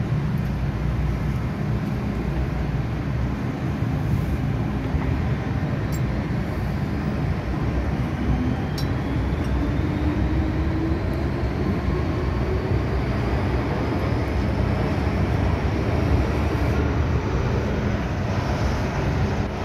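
MTR M-Train electric multiple unit running on the Tsuen Wan Line, a steady heavy rumble of wheels on rail. From about the middle a traction-motor whine rises slowly in pitch as the train picks up speed, with a couple of sharp clicks.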